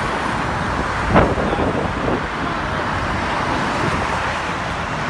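Steady rush of road traffic passing on the Golden Gate Bridge roadway, with one short sharp sound about a second in.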